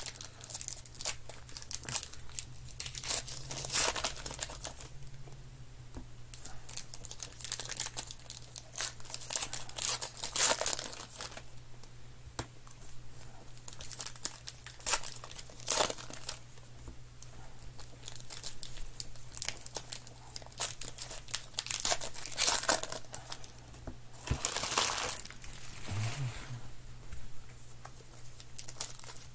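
2020 Topps Heritage baseball card packs being torn open and their wrappers crinkled by hand, in irregular bursts of crinkling, over a steady low hum.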